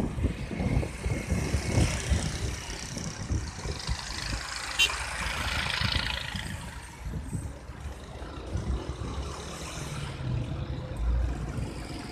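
Gusty wind rumbling on the microphone, with road traffic noise. A rushing sound swells and fades about four to six seconds in, like a vehicle passing.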